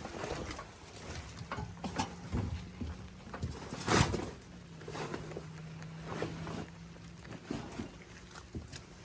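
Footsteps squelching and shifting through wet mud, with scattered knocks and clicks of things being handled; the loudest knock comes about four seconds in. A faint steady hum comes and goes twice.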